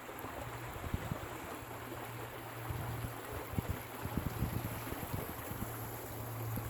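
A steady low hum that drops out now and then, over a hissing background, with scattered soft low knocks.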